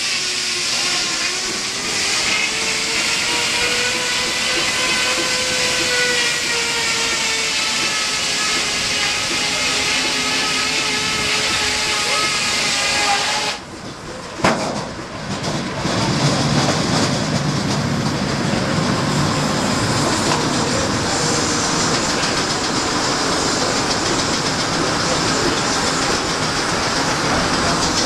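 Belt-driven steam-powered sawmill running: steam hiss under a steady ringing whine that sways slowly in pitch. About halfway through the sound briefly drops away with a single clack, then the mill goes on as a steady noisy hiss with a low rumble.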